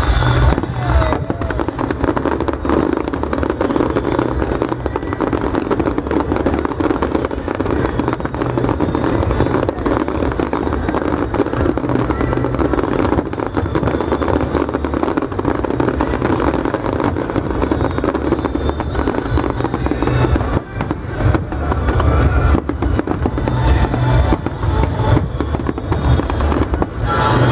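Fireworks going off continuously: dense crackling of many bursts over low booms.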